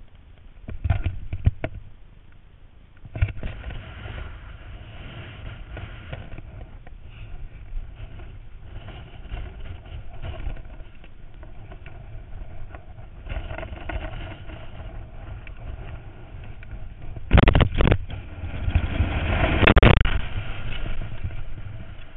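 Wind rushing over the microphone of a body-worn camera during a BASE jump: a low rumbling rush, with sharp gusts about a second in and about three seconds in, and the loudest buffeting late on.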